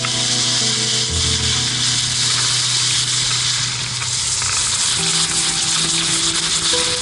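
Music with long held low notes, over a steady hiss of a snowboard sliding and carving across snow.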